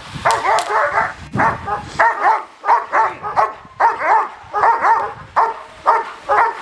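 German Shepherd barking rapidly and fairly high-pitched, about two to three barks a second, at a decoy who is agitating it with a stick: agitation barking in protection work.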